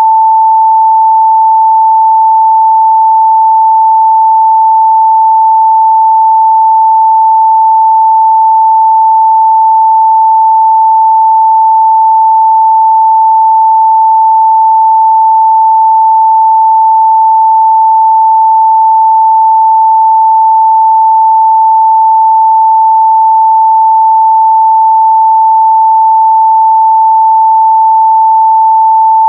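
A steady, loud 885 Hz sine-wave test tone, a single pure pitch held without change.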